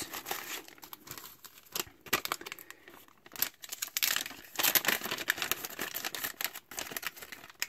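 Plastic bags crinkling and rustling as they are handled and opened, in irregular bursts of crackle.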